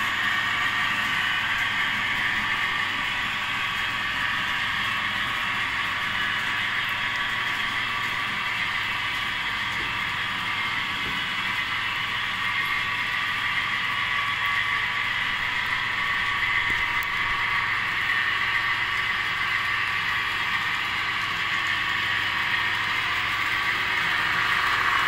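Model railway freight wagons rolling along the track: the metal wheels give a steady, even rolling whirr.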